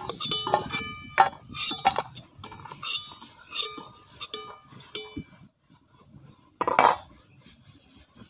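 Steel spatula clinking and scraping against a steel karahi and a steel bowl as fried fritters are lifted out of the oil: a string of sharp, ringing metal clinks, then one louder clatter near the end.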